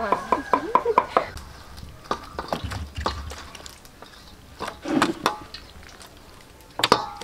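A cleaver chopping quickly on a wooden block, about five strokes a second, for the first second or so. Then come scattered light knocks, and near the end a sharp clink of metal utensils on a stainless steel mixing bowl that rings briefly.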